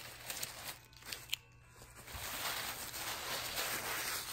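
Tissue paper crinkling and rustling as a Shih Tzu digs her nose into a pile of it, with a few sharp crackles about a second in and denser rustling from about two seconds on.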